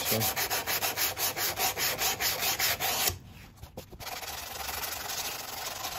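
G10 windsurf fin being hand-sanded with 240-grit sandpaper to smooth out the scratches left by 180 grit. Quick back-and-forth strokes come about six or seven a second and stop about three seconds in; a second later a steadier, quieter rubbing starts.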